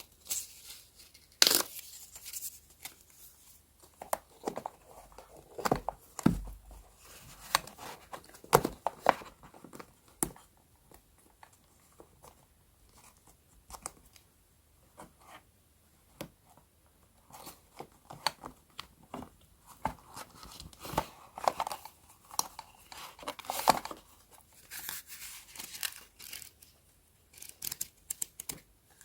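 Close-up paper sounds from decorating a journal: paper tearing, rustling and crinkling, with scattered light taps and clicks, coming in irregular bursts.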